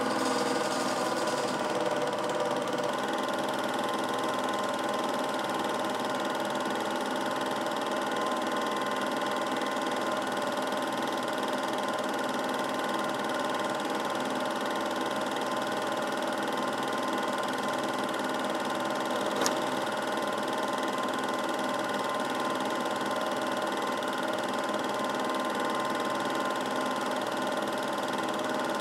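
Film projector running with a steady mechanical whir, and a single sharp click about two-thirds of the way through.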